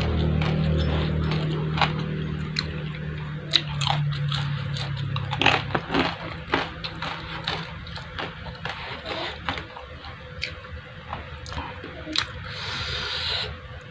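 Close-miked chewing and biting: a string of wet smacks and short crunchy clicks. A low hum fades away over the first few seconds, and a brief hiss comes near the end.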